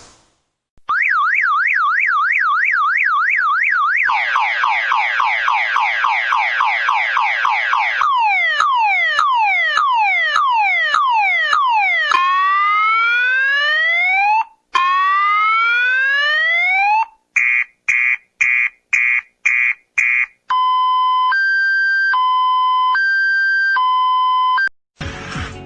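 Electronic car alarm siren running through its tone cycle: a warbling tone, a fast yelp, a run of falling sweeps, then rising sweeps, a burst of rapid beeps, and a slow two-tone alternation.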